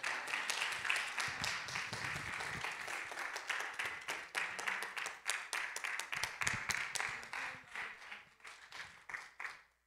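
Congregation applauding: dense handclapping that thins to a few scattered claps near the end and then cuts off.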